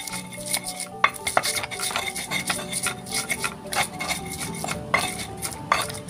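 Stone pestle grinding and crushing red chilies in a stone mortar (Javanese ulekan and cobek). Repeated irregular sharp knocks and grating scrapes of stone on stone.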